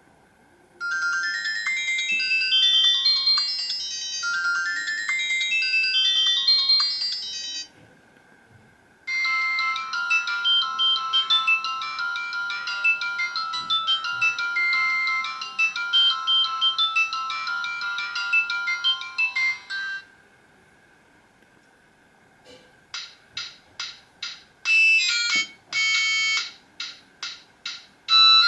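Samsung SCH-A610 ringtone melodies played one after another on an Alcatel 2053D mobile phone's MIDI synthesizer, thin and tinny with nothing in the low end. First comes a quick tune of repeated rising note runs, then after a short pause a longer, busier melody, and after another pause a choppy tune of short separate notes starts near the end.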